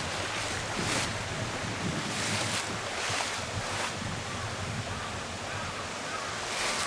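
Steady rush of flowing river water, with a few brief hissing surges.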